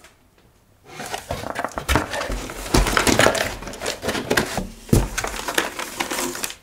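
Cardboard firework battery boxes being handled and lifted out of a corrugated cardboard shipping box: scraping, rustling and knocking of cardboard on cardboard, with two heavier thumps about three and five seconds in. It starts after about a second of quiet.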